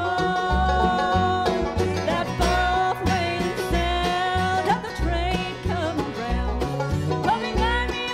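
A bluegrass band playing live, with a woman singing lead over banjo, fiddle, guitar, mandolin, resonator guitar and upright bass. The upright bass keeps a steady beat underneath.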